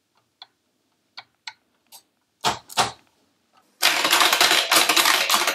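Rapid typing on a TRS-80 Color Computer 2 keyboard, a dense clatter of keystrokes starting about two-thirds of the way in, to test whether the keys register. Before it come a few light clicks and two louder knocks.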